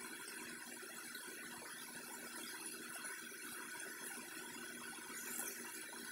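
Faint, steady hiss of an indoor sports hall during a futsal match, with no clear impacts and one brief high sound a little over five seconds in.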